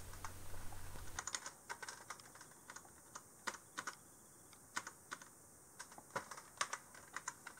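Computer keyboard keys being pressed to move through a BIOS setup menu: faint, irregular clicks, some single and some in quick runs.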